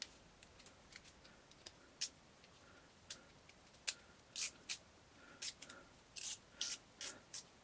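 Hand cutting tool snipping at electrical cable: a string of sharp clicks and short, hissy snips, coming closer together and longer in the second half.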